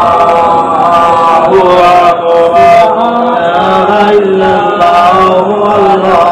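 A man's voice chanting a slow devotional melody, holding long notes that waver and slide from one pitch to the next.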